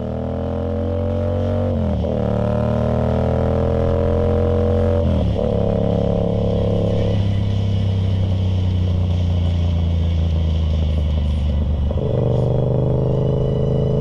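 Yamaha MT-07 parallel-twin engine accelerating through the gears. Its pitch climbs and then drops at gear changes about two, five and twelve seconds in, and it runs at a steady pitch for a while after the middle.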